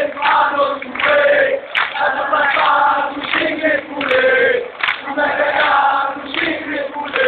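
A large crowd of Raja Casablanca football supporters singing a chant together in the stands, many voices in unison, in short phrases with brief dips between them.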